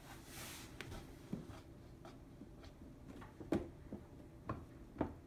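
Quiet room with faint, scattered taps and a soft rustle from a toddler standing at a plastic activity toy, hands on the toy.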